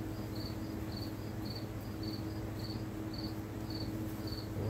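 Insect chirping steadily, short high chirps about twice a second, over a steady low electrical hum.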